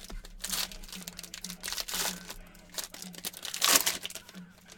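Trading-card pack wrapper being crinkled and torn open by hand: irregular rustles, with the loudest crackle a little before the end.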